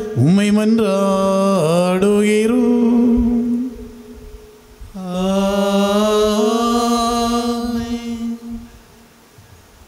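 A priest chanting a liturgical prayer, holding long steady notes with short slides between them, in two phrases; the second starts about five seconds in and dies away about eight and a half seconds in.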